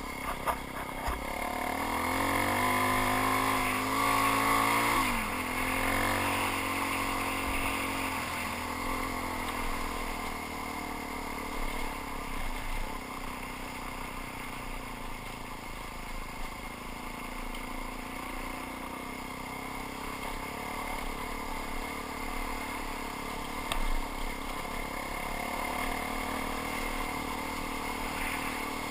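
Suzuki DR-Z400 single-cylinder four-stroke dirt bike engine running on a rough forest trail, rising in pitch under throttle over the first few seconds, dropping sharply about five seconds in, then running steadier and a little quieter.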